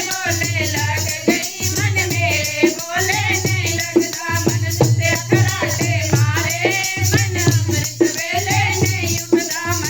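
Devotional kirtan music: a gliding melody line over a steady low drone, with percussion strokes keeping a regular beat.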